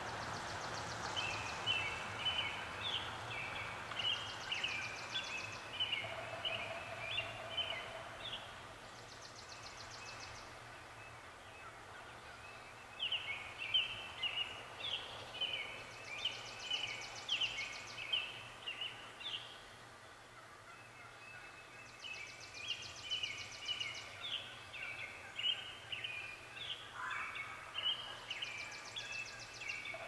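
Songbirds singing at dawn: bouts of quick chirping notes lasting several seconds with short pauses between them, and a high, dry trill that comes back every few seconds.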